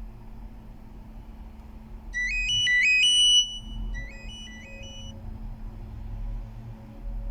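Short Nokia ringtone played by a Fly E154 phone's MediaTek (MTK) synthesizer: a quick run of stepped, rising notes about two seconds in, repeated more quietly a second later, over a steady low hum.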